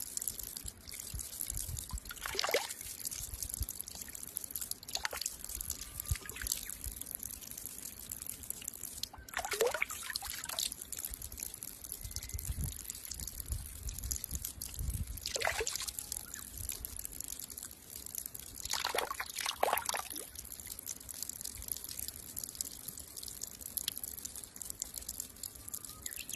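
A thin stream of water running from the end of a small pipe onto stone, a steady trickle. About half a dozen brief louder gurgles break it, falling in pitch.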